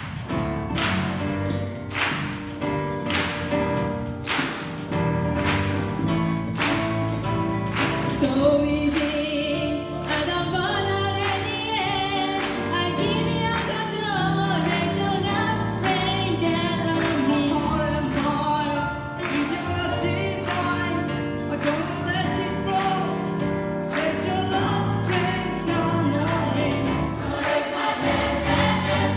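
Gospel choir singing live with band accompaniment over a steady beat of about two strokes a second; the choir's voices come in about eight seconds in.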